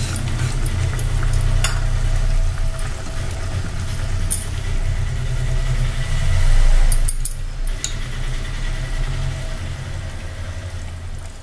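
Steady low rumble of an open pressure cooker of rice, vegetables and hot water heating on a gas burner, with a few light clicks of a steel spoon against the pot.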